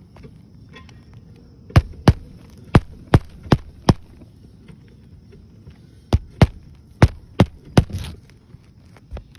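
Hammer driving roofing nails into an asphalt shingle: a run of about six sharp strikes a little under half a second apart, a pause, then five more strikes.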